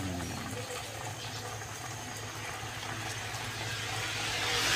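Pork rib curry simmering and bubbling in an aluminium pot on a gas stove, over a steady low hum. A rushing noise begins to swell near the end.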